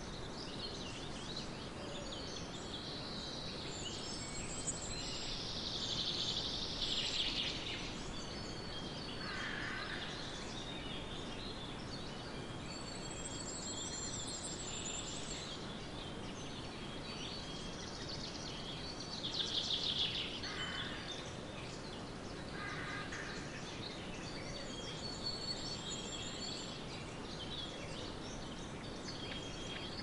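Wild birds calling and chirping on and off, with some short high trills, over a steady background hiss; the calls are loudest about six seconds in and again about twenty seconds in.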